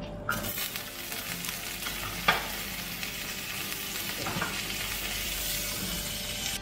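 Butter sizzling and frying on a hot flat iron griddle (tawa) under buns. The sizzle starts suddenly as the butter goes on, with a sharp click about two seconds in, and cuts off abruptly at the end.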